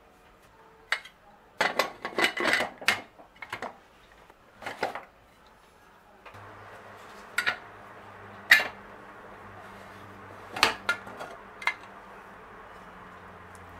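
Kitchen utensils clinking and knocking against pots and dishes: a quick cluster of knocks in the first few seconds, then a few separate clinks over a steady low hum that starts about halfway through.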